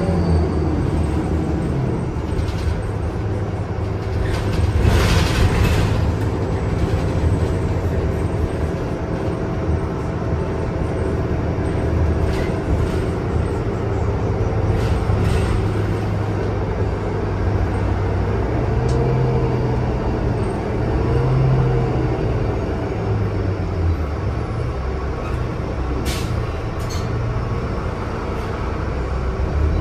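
Ride sound of a NovaBus LFS CNG city bus: its Cummins 8.9 L six-cylinder ISL-G natural-gas engine runs steadily, and the engine's pitch rises and falls a few times past the middle. A short hiss comes about five seconds in, and a few sharp clicks come near the end.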